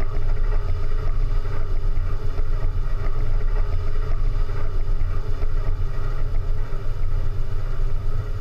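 Steady low rumble with a faint hiss over it.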